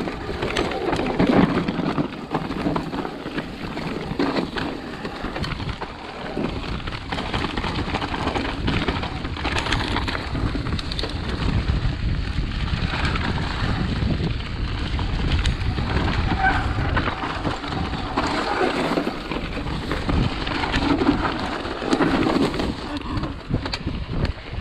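Mountain bike descending a trail, heard from a GoPro on the rider: wind rushing over the microphone and tyres rumbling over dirt and rocks, with frequent knocks and rattles from the bike.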